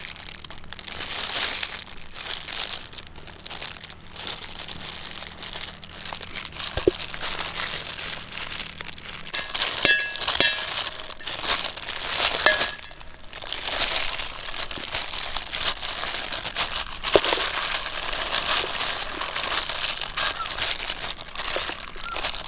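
Thin plastic glove crinkling and rustling as a gloved hand pulls boiled chicken legs apart, with a few light clinks of a metal spoon against a stainless steel bowl about halfway through.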